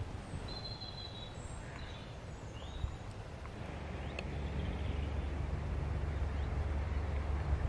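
Quiet rural outdoor ambience: a few short bird chirps and whistles in the first three seconds, then a low rumble that grows louder from about halfway through.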